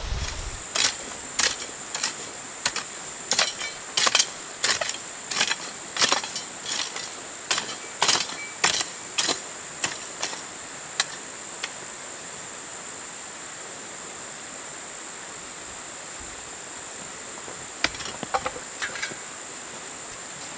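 A series of sharp knocks, about one and a half a second, stopping about halfway through, then a short cluster more near the end, over a steady high-pitched insect trill.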